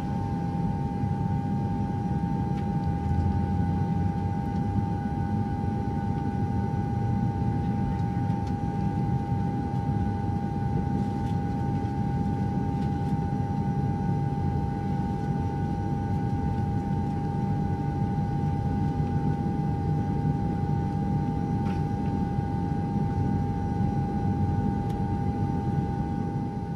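Steady mechanical hum: a low rumble with a constant, unwavering whine over it.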